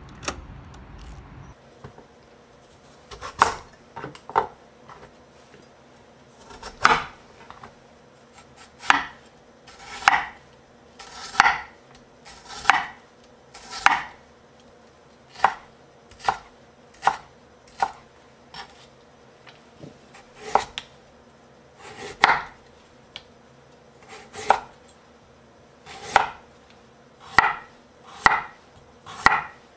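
Kitchen knife chopping on a wooden cutting board, slicing garlic cloves and then carrot: separate sharp chops, roughly one a second, starting about three seconds in.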